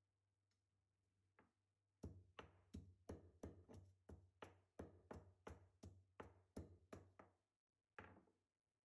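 Stone pestle pounding green chillies and cumin seeds in a stone mortar: a regular run of quiet knocks, about three a second, starting about two seconds in, with one last strike near the end.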